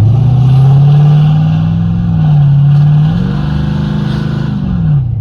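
Chevy's Blueprint crate engine revved twice: the pitch climbs from idle and holds, dips briefly, then climbs higher before falling back to idle near the end.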